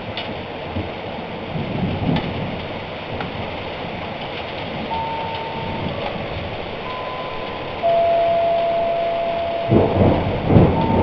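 Steady rain falling during a thunderstorm, with a low thunder rumble swelling near the end. Over the rain, a series of steady single-pitch tones starts about halfway in and steps between a few pitches, the lowest and loudest held for about two seconds: an unexplained tone signal of unknown origin that was not heard in the room.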